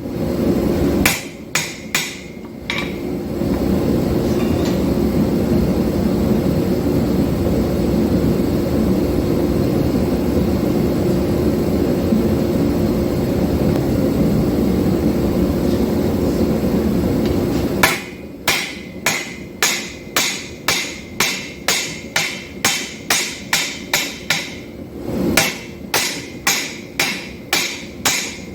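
Forging hammer blows ringing on steel at an anvil, a few at the start and then a steady series of about two a second in the last ten seconds, with a brief pause. Between them is a loud, steady low roar of machinery lasting about fifteen seconds.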